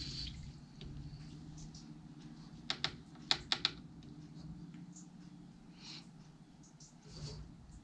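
Light handling sounds from a watercolour half pan set and brush: a quick run of about five sharp clicks and taps around three seconds in, then a few soft swishes as a wet paintbrush is worked in a half pan.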